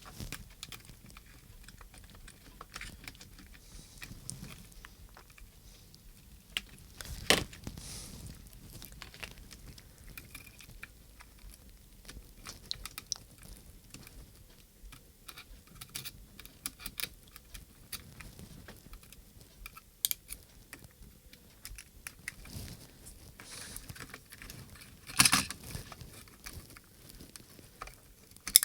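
Scattered small clicks and rustles of fingers and tools working inside the plastic case of a handheld radio transmitter, freeing the small wire connectors from its switches. Two sharper clicks stand out, about seven seconds in and near the end.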